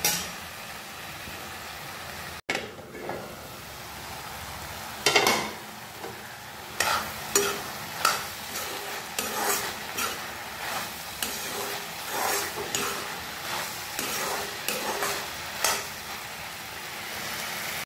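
A metal spatula stirring and scraping vegetables around an iron kadai, over a steady sizzle of frying. From about five seconds in the scraping strokes come about once or twice a second.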